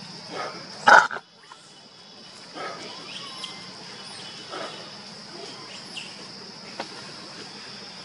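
Long-tailed macaques calling: one loud, sharp call about a second in, then a few fainter short calls, over a steady high drone of insects.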